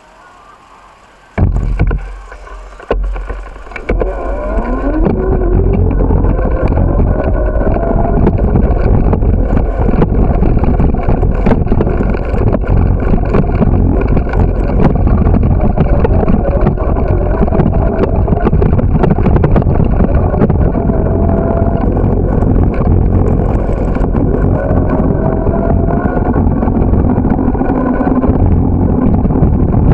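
Bicycle ride with the camera's microphone on the move: a few loud knocks of handling about a second and a half in, then a steady low rumble of wind on the microphone and tyres rolling over rough pavement. A faint whine rises in pitch about four seconds in as the bike gathers speed.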